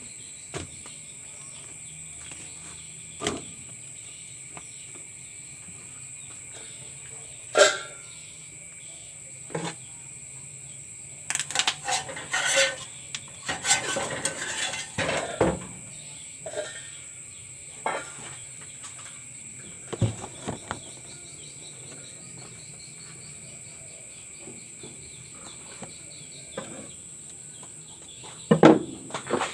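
Scattered clinks and knocks of dishes and utensils being handled, busiest about halfway through, over a steady high chirring of insects that carries on throughout.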